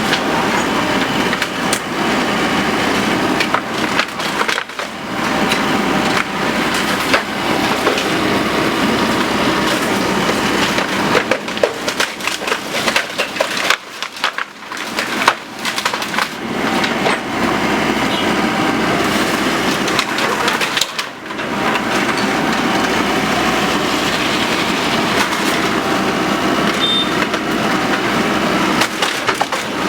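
Bamboo stalks cracking and splintering as an excavator pushes over and crushes a bamboo clump: a dense, continuous crackle full of sharp snaps, easing briefly about halfway through and again about two-thirds through.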